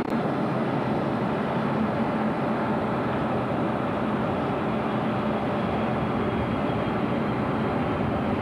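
Steady drone of airliner engines running on an airport apron, loud and unbroken.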